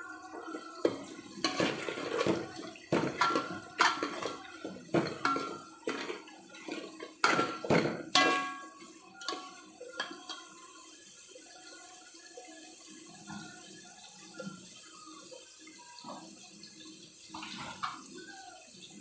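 A metal spoon knocking and scraping against an aluminium pot as sliced onions are stirred in oil, in many sharp clatters for about the first half. After that a steady sizzle of the onions frying, with only an odd knock.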